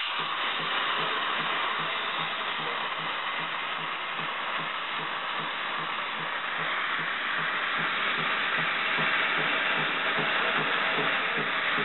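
Steady hiss of steam from a homemade double-boiler espresso machine, with a regular low pulsing throb about three times a second underneath.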